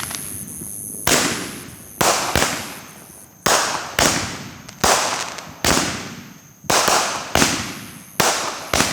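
Consumer fireworks going off in a rapid barrage: about a dozen sharp bangs at roughly one a second, some in quick pairs, each trailing off in a crackling, echoing tail.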